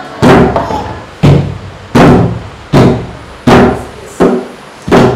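Large double-headed barrel drum struck in a slow, steady beat: seven loud strokes about two-thirds of a second apart, each ringing out briefly, the sixth a little softer.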